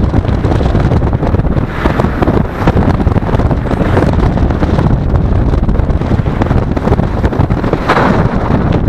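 Strong wind buffeting the microphone: a loud, gusting low rumble.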